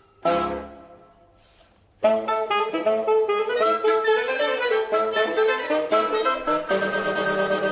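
Instrumental background music. A single struck sound rings out and fades, then a lively new passage with many quick notes starts about two seconds in.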